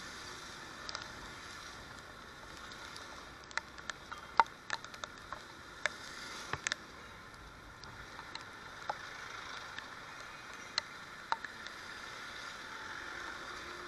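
Steady hiss of rain and wet road heard through a motorcycle-mounted camera, with scattered sharp ticks of raindrops striking the camera, thickest between about four and seven seconds in.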